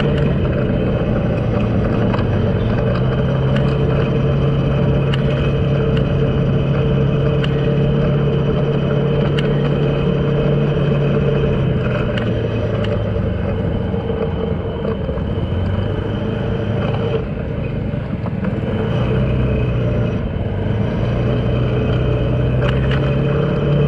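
A road vehicle's engine running steadily under way, with road noise. Its note drops about halfway through, sinks lower for a few seconds, then rises again near the end.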